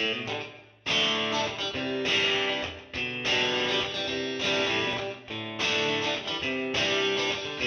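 Background music: guitar chords played in a steady pattern.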